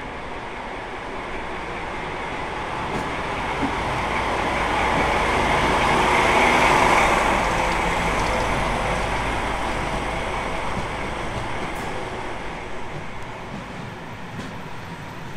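DB class 216 diesel-hydraulic locomotive hauling a passenger train slowly alongside a platform. Its sound swells to a peak as it passes close by, about halfway through, then fades as the coaches roll past, with a few sharp clicks near the end.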